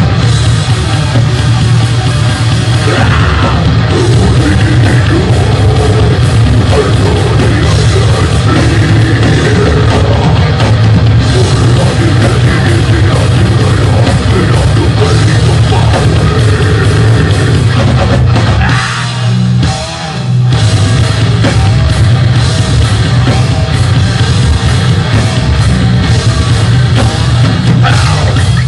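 Death/grind metal band playing live: distorted electric guitars, bass and pounding drums, with growled vocals over parts of it. About two-thirds of the way through the band drops out for about a second before crashing back in.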